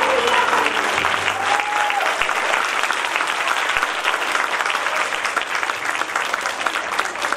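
Audience applauding at the end of a dance number, the music cutting off within the first second. The clapping stays steady and slowly fades.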